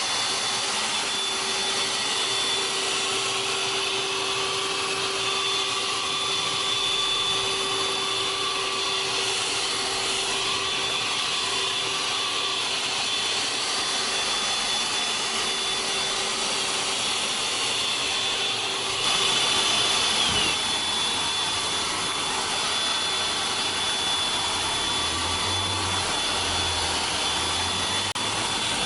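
GWELL G5 cordless handheld vacuum cleaner running steadily, its motor giving a high whine over the rush of air. About two-thirds of the way through it is briefly louder, and the whine dips.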